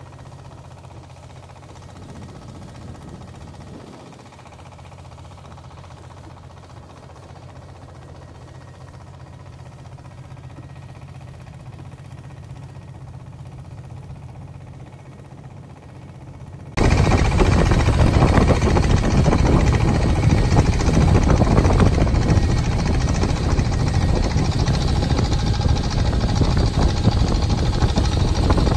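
Faint low hum, then about seventeen seconds in a loud engine-like running noise cuts in abruptly and carries on steadily.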